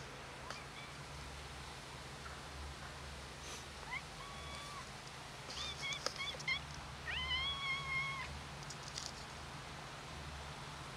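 Stray cat meowing for food: one call about four seconds in, a quick run of short meows around six seconds, then a longer drawn-out meow just after seven seconds.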